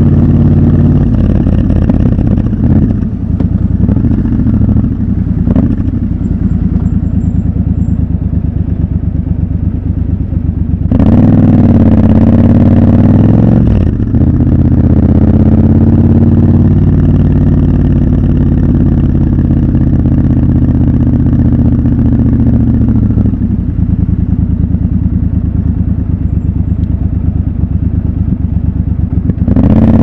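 Triumph Scrambler 1200 XC's 1200 cc parallel-twin engine running through city traffic. About eleven seconds in it accelerates hard for a few seconds and shifts up, then runs steadily, eases off a little past twenty seconds, and opens up again near the end.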